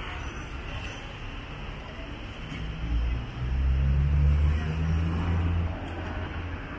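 Street traffic on a city avenue. A motor vehicle's engine rumbles past, loudest in the middle few seconds, over the general traffic hum.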